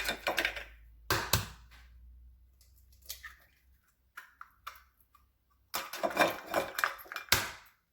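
Eggs being added to a bowl: a series of short clicks and knocks, with a sharp knock about a second in and a dense run of clicking near the end.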